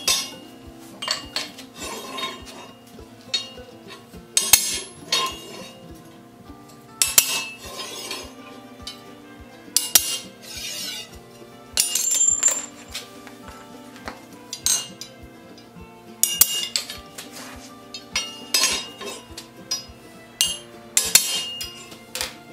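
Hammer striking a punch on a flat iron sled-runner shoe over an anvil, marking the bolt holes: a series of sharp metallic clinks with a ringing tail, every second or two. Background music with a steady beat runs underneath.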